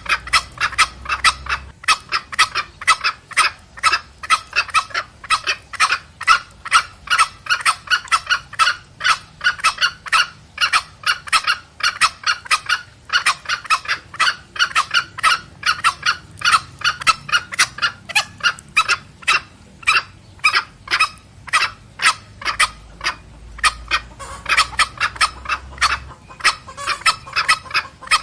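Junglefowl calling back and forth in a dense, unbroken run of short clucking cackles, about three or four calls a second: the excited 'petrek' cackle of hen and cock used to lure wild junglefowl.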